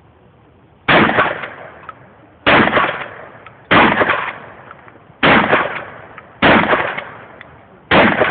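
Six shotgun shots fired one after another, about a second and a half apart, each a sharp blast followed by a fading echo.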